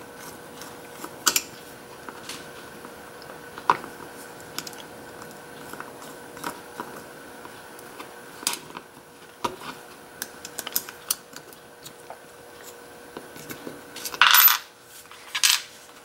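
Small metal clicks and clinks of a screwdriver working at the back of an old brass Corbin mortise lock cylinder to take off its cam. A louder metallic clatter comes about two seconds before the end, and a shorter one just after it.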